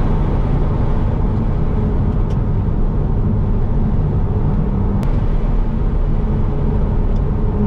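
Steady rumble of a moving car heard from inside its cabin: tyre and road noise with a low engine hum, plus two faint ticks.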